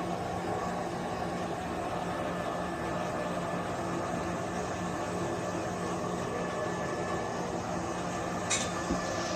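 Handheld hair dryer running steadily, blowing on a wet puppy's fur: an even rush of air over a constant low motor hum. A brief tick near the end.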